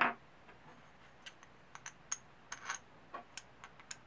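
Light metallic clicks and taps of steel bolts being handled and pushed through the flange holes of a cast aluminium intake manifold. A single louder knock comes right at the start.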